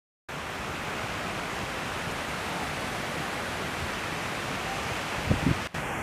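Strong wind making a steady rushing hiss, with gusts buffeting the microphone about five seconds in.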